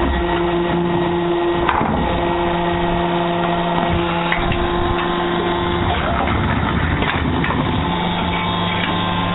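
Hydraulic brick and kerbstone making machine running: a steady pump hum of several tones that cuts out and returns a few times, under a continuous clatter with a few sharp metal knocks.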